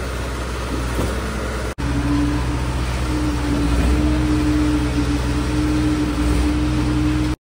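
Engines of a trailer-mounted concrete pump and a transit mixer truck running steadily, the pump freshly started and being fed concrete. The sound breaks off briefly about two seconds in, then a steady machine hum carries on with a held whine over it.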